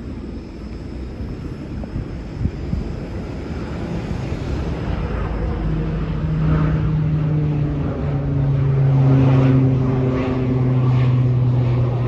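Engine drone of an aircraft flying over a forest fire, a steady hum that grows louder from about halfway in and drops slightly in pitch, over a low rumble of wind on the microphone.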